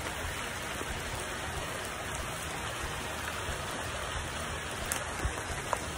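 Steady pouring rain, an even hiss, with a few faint ticks of individual drops near the end.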